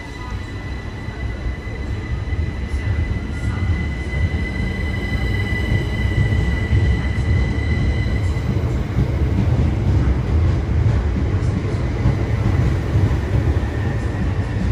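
Southern Class 377 Electrostar electric multiple unit pulling away from the platform: a steady high electric whine from its traction equipment fades out about eight seconds in, while the low rumble of wheels on rail grows louder as the train picks up speed.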